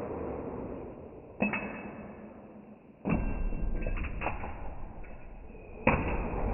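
A few sharp metallic knocks and clinks, some ringing on briefly like struck metal, spaced a second or more apart over a steady background hiss.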